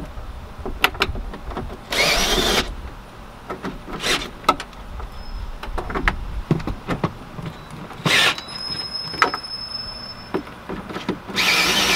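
Clicks and small rattles of hands and tools working the mirror's mounting nuts inside a van door. These are broken by three brief bursts of a small cordless screwdriver running the nuts down, the last near the end.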